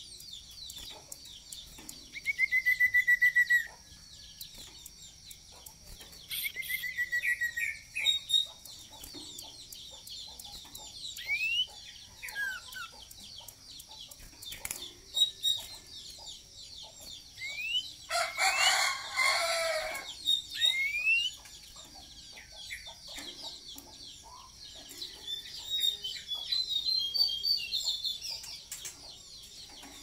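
Common iora (cipoh) calling from its cage with short rapid trills and rising whistles, while a rooster crows once about two thirds of the way through.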